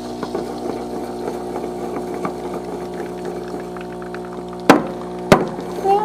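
Stainless steel milk pitcher of freshly steamed milk knocked twice on the counter near the end, two sharp taps about half a second apart, to break up large bubbles in the foam. A steady mechanical hum runs underneath.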